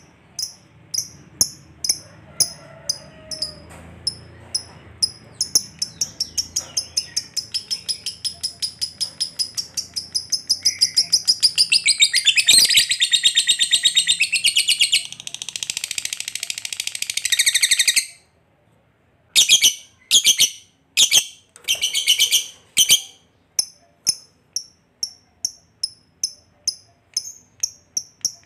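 Lovebird chattering: short, sharp, high-pitched chirps, at first about two a second, quicken into a long unbroken trill, the 'ngekek panjang' that keepers prize, which runs about eight seconds and cuts off suddenly. A few short bursts follow, then the chirps start again and speed up near the end.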